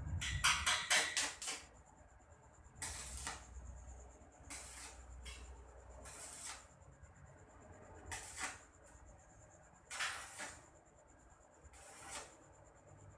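Metalwork on a hollow-steel tube frame during assembly: a quick cluster of harsh noisy strikes at the start, then single short bursts every second or two, with a faint steady high whine underneath.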